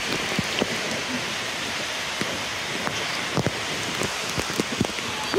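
Steady hiss of falling and splashing water in an indoor waterpark lazy river, with scattered small drips and splashes.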